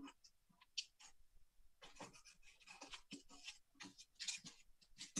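Faint, irregular rustling and crinkling of a paper strip being rolled tightly by hand into a thin tube.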